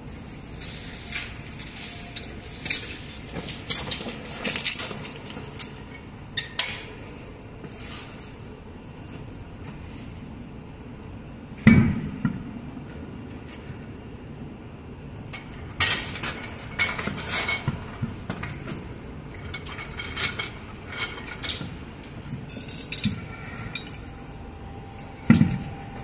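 Metallic clinking and clattering from handling a bus's rear dual wheel and its tools, with two heavy thuds, one about halfway through and one near the end.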